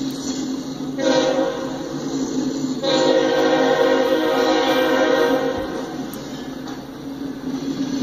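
Diesel locomotives of a freight train passing close by, engines running, while the train's horn sounds: a shorter blast about a second in, then a longer, louder one from about three seconds in that fades out after about five and a half seconds.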